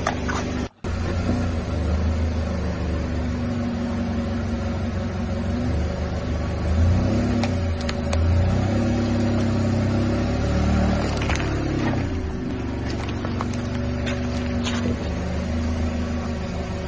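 Car engine running at low speed, its pitch rising and falling as it is revved, with a few short sharp clicks along the way.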